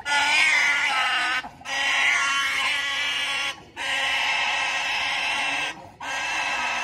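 A bound pig squealing in long, high, sustained screams, four in a row with short gasps between them, as it is stuck with a spear and killed as a sacrifice.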